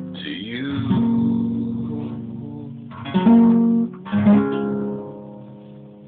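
Acoustic guitar playing the closing chords of the song: a few strums, the last one left to ring and fade away.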